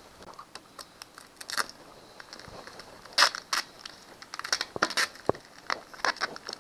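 Clear plastic film crinkling and crackling as it is handled and peeled back by hand, in an irregular run of short crackles, the loudest a little after three seconds in.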